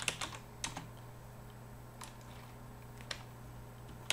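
Slow, scattered keystrokes on a computer keyboard, a quick few at the start and then single taps about a second apart, over a low steady hum.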